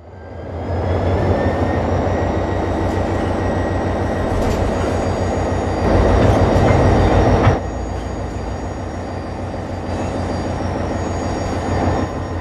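A 208-ton freight train pulled by a diesel locomotive gets under way and rolls along the track: a steady low rumble with a thin high-pitched squeal over it. The sound changes abruptly about seven and a half seconds in.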